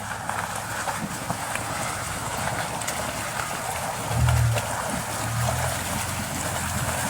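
Jeep Wrangler engine running under load on an off-road trail, its low note getting louder about four seconds in, over steady rough tyre and trail noise with scattered small knocks and rattles.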